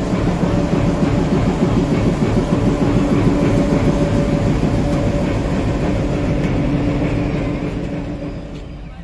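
Diesel locomotive engine running close by: a loud, steady drone with a constant low hum, fading out near the end.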